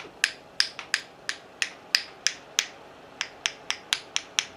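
A steady run of sharp, even clicks, about three a second.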